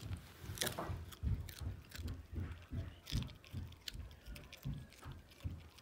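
Small dog chewing and crunching a piece of raw carrot: an irregular run of crunches with soft thumps, about two to three a second.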